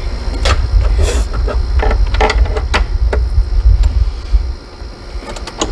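Irregular metallic clicks and clinks of a wrench and socket ratchet working on the bolts that hold a stern mount bracket to an outboard motor mount, over a low wind rumble on the microphone that eases off near the end.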